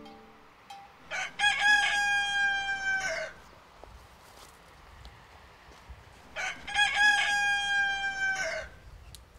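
A rooster crowing twice, each crow about two seconds long, with a broken, stuttering start and a long held note that drops off at the end.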